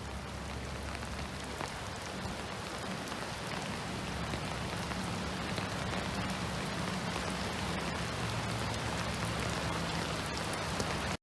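Floodwater rushing in a swollen river, a steady, even rush of water that grows slightly louder over the stretch.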